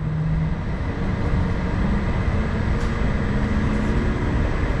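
Hokuriku Shinkansen train heard from inside the carriage as it pulls out of a station and picks up speed. A whine rises in pitch as it accelerates, over a steady rumble from the running gear.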